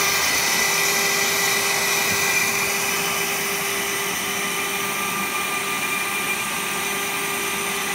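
Small CNC mill's spindle running with a steady whine as its bit surfaces the sacrificial bed board, mixed with the steady rush of a vacuum cleaner whose hose is held at the bit to suck up the chips.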